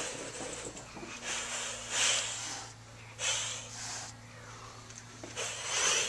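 Young kitten hissing defensively: three breathy hisses, each about a second or less, spaced roughly two seconds apart.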